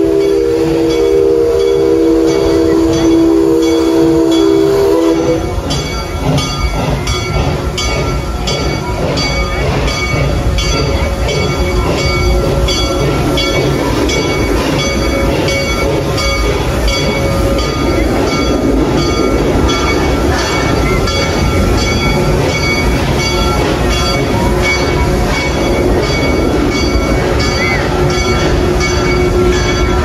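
A horn-like chord held for about five seconds, then the rumbling, mechanical running of a giant pendulum ride swinging through a test run, with a regular clicking.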